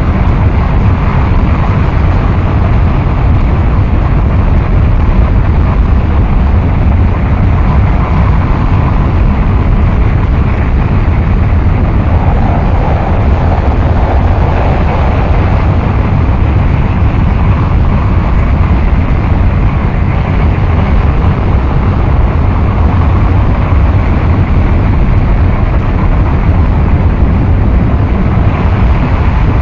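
A loud, unbroken wall of dense rumbling noise, heaviest in the low end, with no beat or melody; it is a harsh noise wall style track.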